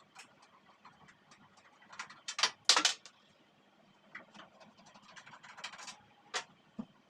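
Light clicks, knocks and scraping of hard objects being handled, with a louder rattling clatter about two and a half seconds in and another sharp knock near the end.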